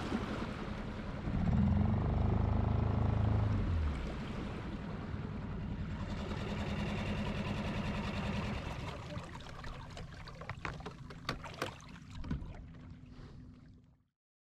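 Small outboard motor on a micro skiff running under way, louder for a few seconds early on and then easing off, followed by a few sharp clicks near the end before the sound cuts off.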